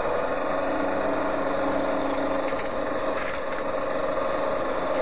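Engine of heavy demolition machinery running steadily at a constant pitch.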